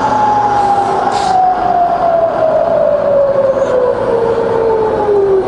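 Bridgeport milling machine's variable-speed head running while the spindle speed is wound down from 3000 toward 500 RPM: a steady whine that falls smoothly in pitch, over an even running hum.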